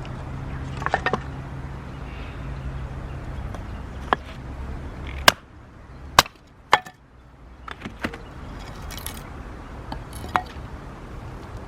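Hinoki firewood being chopped: several sharp strikes at uneven intervals, over a low steady hum that stops about halfway through.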